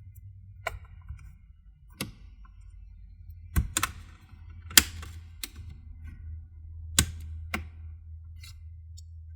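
Plastic clips of an HP Omen 15 laptop's bottom cover snapping loose as a guitar pick is pried and twisted in the seam: about eight sharp clicks, irregularly spaced, over a low steady hum.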